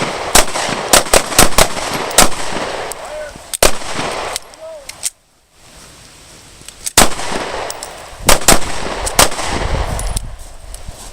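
Pistol shots from several shooters on a firing line, fired unevenly and overlapping, each a sharp crack with a short echo. The shooting breaks off for about a second in the middle, then picks up again with another run of shots.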